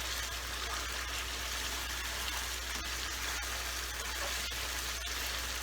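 Chicken sukha sizzling steadily in the pan as its released water cooks off, over a low steady hum.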